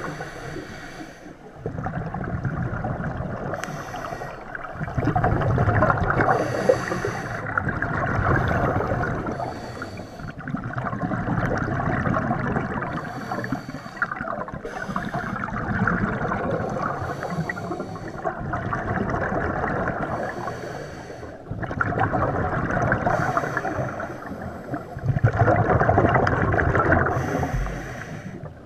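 A scuba diver breathing through a regulator underwater: a short hiss on each inhale, then a few seconds of bubbling exhaust, repeating about every three to four seconds.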